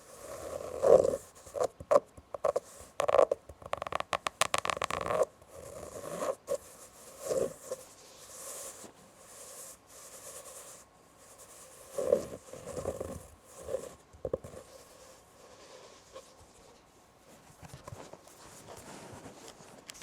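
Close-up scratching on fabric in irregular strokes, with a quick run of rapid scratches about four to five seconds in and softer, sparser strokes later on.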